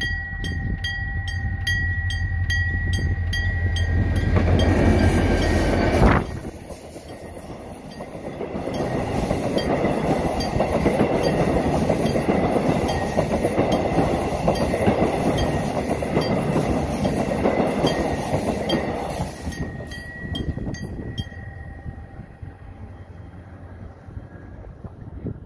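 Level-crossing alarm dinging at a steady rapid rate while a diesel locomotive rumbles past. The new subway cars it hauls then roll past with steady wheel-on-rail noise. The crossing alarm is heard again briefly near the end, and the train noise fades away.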